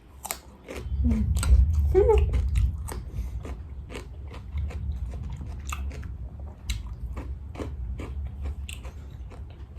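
Close-miked crunchy bites and chewing of crisp-coated fried chicken: a dense run of sharp crackles from the coating over a heavy low chewing rumble, loudest between about one and three seconds in.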